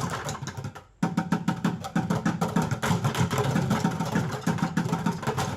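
Percussion group playing a fast, even samba beat on drums, cutting in suddenly about a second in after a brief lull.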